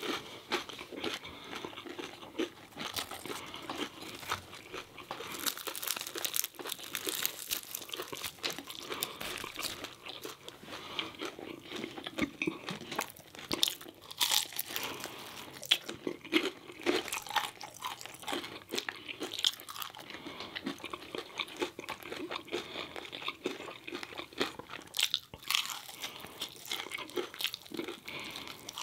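Close-up chewing of crispy fried chicken and fried fish: crackling bites and crunching with wet chewing, one louder crunch about halfway through.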